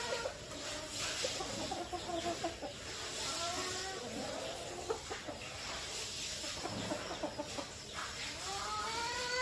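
A flock of domestic chickens clucking and calling as they forage, with short scattered clucks throughout. Near the end comes a longer, louder call that rises and then falls in pitch.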